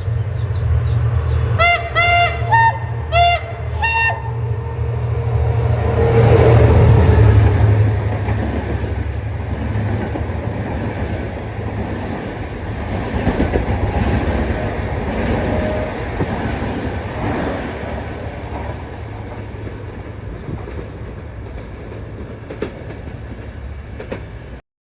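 Henschel diesel locomotive of Egyptian National Railways sounding its horn in several short blasts over its engine rumble, then passing at its loudest a few seconds later. The coaches follow, wheels clicking over the rail joints as the sound slowly fades, until it cuts off just before the end.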